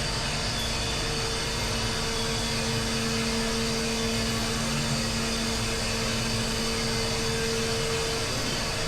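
Steady engine drone with a constant low hum and a wide hiss, unchanging in pitch throughout.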